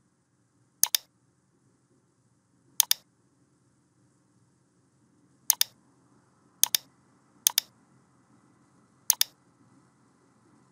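Computer mouse button clicking six times at irregular intervals, each a quick pair of sharp clicks, over a faint low hum.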